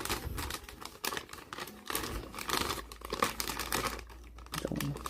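Plastic packaging being handled: irregular crinkling and clicking as a figure is taken out of its plastic protective wrapping.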